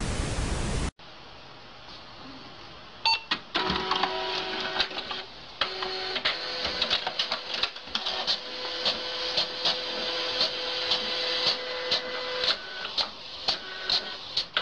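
A short burst of static hiss for about a second, then a desktop printer printing: a motor whirring with steady tones and a regular sharp clack about twice a second.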